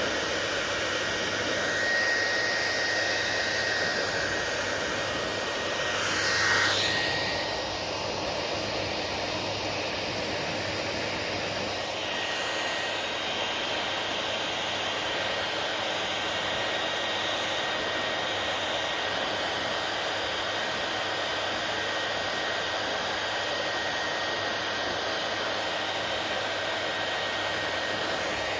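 Hair dryer running steadily, a constant rush of air with a thin high whine from its motor. About six seconds in the sound briefly swells and sweeps, and around twelve seconds in its tone shifts slightly, then it runs on evenly.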